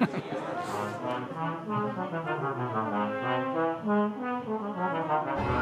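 Orchestral music led by brass: a run of held notes and chords that change every half second or so. The sound changes abruptly near the end.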